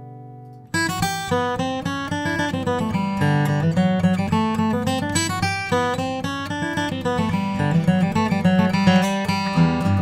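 Martin HD-28 short-scale dreadnought acoustic guitar (Sitka spruce top, Indian rosewood back) playing unaccompanied. A held chord fades out, then about a second in a lively picked passage starts: quick melody notes and chords over a moving bass line.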